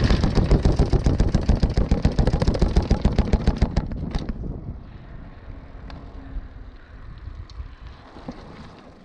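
Specialized Status downhill mountain bike clattering and rattling hard over rough ground on a descent, a dense run of rapid knocks that eases off after about four and a half seconds into quieter rolling noise.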